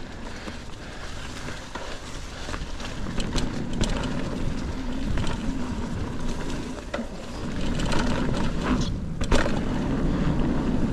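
Mountain bike rolling over a dirt trail and jumps: rough tyre and riding noise that grows louder a few seconds in, with several sharp knocks and clatters from the bike.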